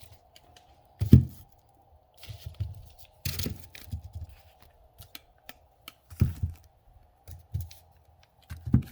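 Cardboard-wrapped fireworks being handled and set down: several dull thumps, the loudest about a second in, with rustling and scraping of packaging between them.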